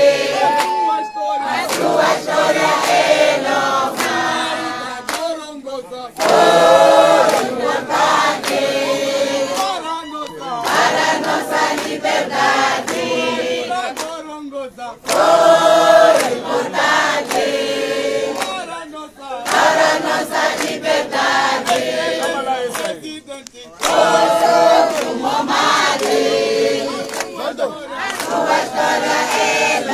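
A crowd of men and women singing together without instruments, in phrases of a few seconds with short breaks between them.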